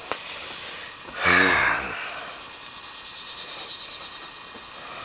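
A man's breathy sigh-like grunt, under a second long with a falling pitch, about a second in; otherwise only a low steady background hiss.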